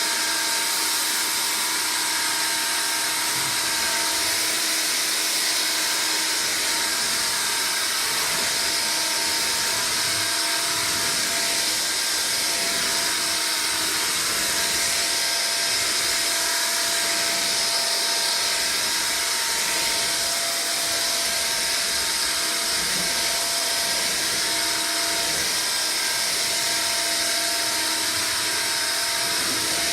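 Hoover Air Cordless Lift stick vacuum running steadily on normal mode with the brush roll off (straight suction), a constant motor whine over rushing air, as it vacuums rice off the floor.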